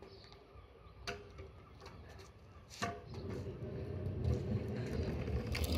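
Kick scooter wheels rolling on hard ground, a rough rumble that builds and grows louder from about three seconds in as the scooter comes closer, after two sharp clicks.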